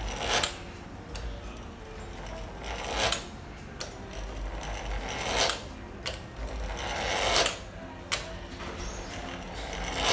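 Fluted pastry wheel rolled along a sheet of dough on a worktop, cutting strips: five scraping strokes about two seconds apart, each building briefly and stopping sharply, with a light tap between strokes.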